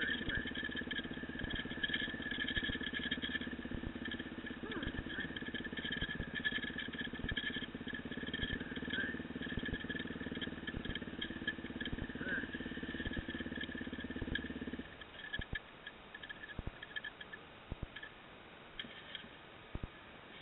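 Dirt bike engine running steadily while riding a rough trail. About three-quarters of the way through the engine note stops abruptly, leaving scattered knocks and rattles from the bike over the rutted track.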